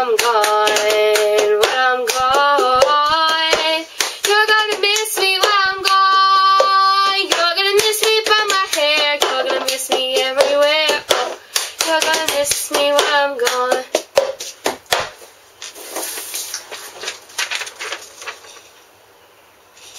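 Cup-game rhythm: hand claps and a cup tapped and slapped on a wooden table, with a girl's voice carrying the tune without words over it. The clapping and the voice stop about fifteen seconds in.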